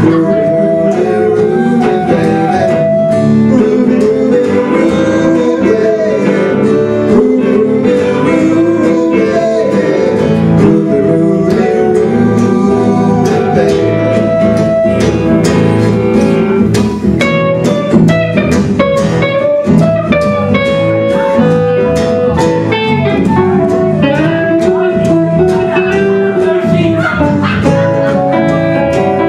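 Band music in a bluesy style, led by guitars, playing steadily throughout.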